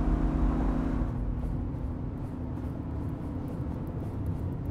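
Car driving: a steady low engine and road rumble that eases down over the first couple of seconds, then holds.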